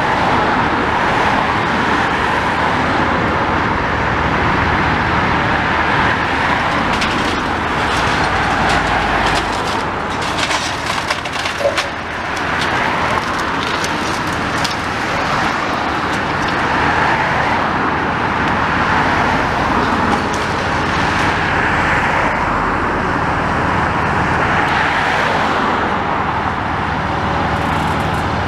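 Road traffic passing close by in a steady stream, swelling and fading as vehicles go past, over a tracked demolition excavator working. A run of sharp knocks and crunches comes about ten to twelve seconds in.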